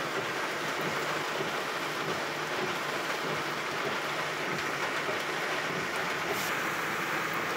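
Heavy rain on the roof and windshield of a pickup truck, heard from inside the cab as a steady hiss. A brief swish about six seconds in comes as the windshield wiper passes.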